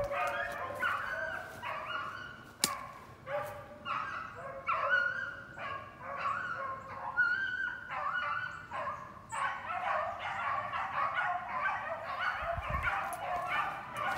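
A pack of beagles baying as they run a rabbit. Several dogs' voices overlap, in broken runs of cries at first and then an almost unbroken chorus in the last few seconds.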